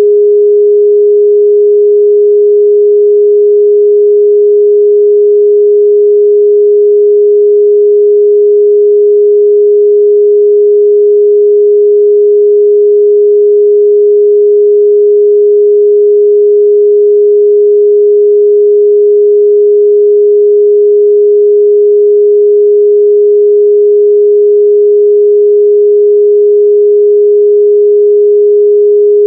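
Steady 414 Hz sine-wave test tone, a single pure midrange pitch held unchanged and loud.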